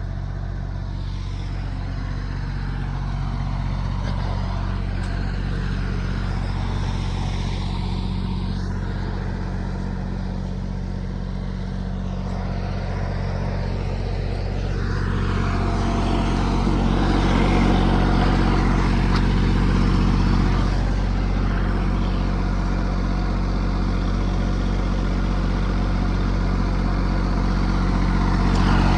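Diesel generator engine of a portable light tower running steadily at constant speed, an even low drone. A louder rushing noise rises over it from about halfway through for several seconds.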